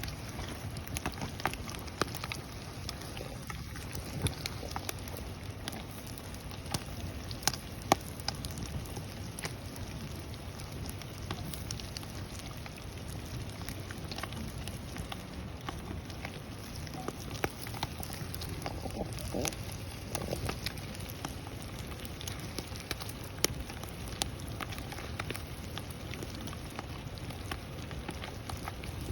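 Wood campfire burning, crackling steadily with frequent irregular snaps and pops, a few of them sharper and louder than the rest.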